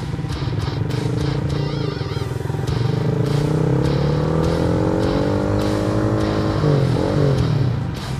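Honda CBR150R single-cylinder engine pulling under acceleration, its pitch climbing steadily for several seconds before breaking off near the end, with music in the background.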